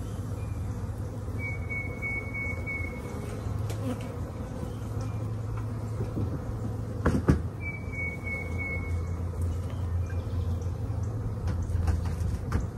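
Honey bees buzzing steadily around the hives. A high, drawn-out whistled note sounds twice, and two sharp knocks come about seven seconds in.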